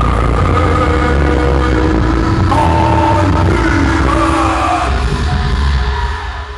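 Music with long held notes over a steady deep bass drone, dipping slightly in level near the end.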